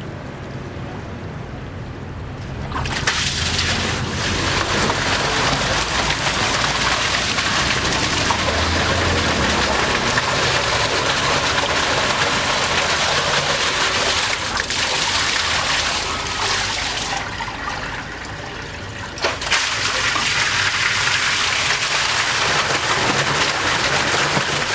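Water gushing out of a fish pond's central-drain standpipe and splashing down into a concrete outlet box, flushing waste from the pond bottom. It starts about three seconds in, falls back for a couple of seconds past the middle, then gushes again.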